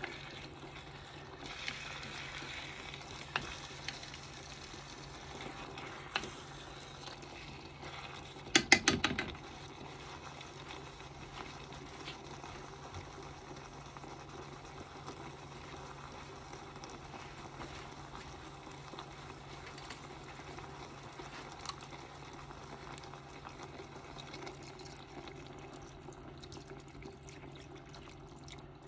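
Ground meat, tomato and vegetable mixture sizzling in a pot as it is stirred, with a quick clatter of utensils against the pot about nine seconds in and a few single taps elsewhere. A steady low hum runs underneath.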